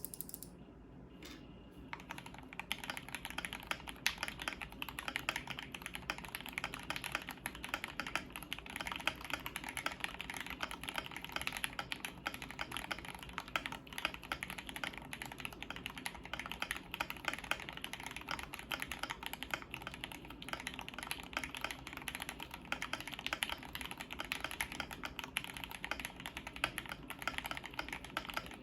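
Fast, continuous typing on a KBD75 v3.1 mechanical keyboard with lubed Gateron CJ switches on a brass plate. A few single keystrokes come first, then steady rapid typing starts about two seconds in.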